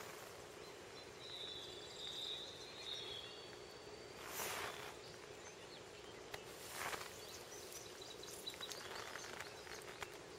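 Faint outdoor ambience in brush: a steady low hum under a soft noise bed, a thin high whistled call, likely a bird, from about a second in for a couple of seconds, and two short rustles about four and a half and seven seconds in.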